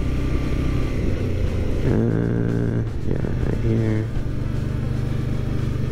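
Suzuki V-Strom 650's V-twin engine running steadily while the motorcycle is ridden.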